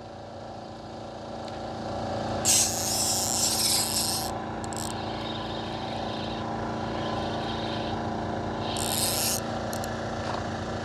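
Fishing boat's engine running steadily, with two loud bursts of hissing rasp: a longer one about two and a half seconds in and a shorter one about nine seconds in.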